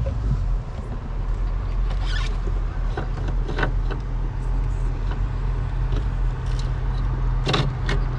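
A motor running steadily with a low hum, with a few scattered clicks and knocks over it.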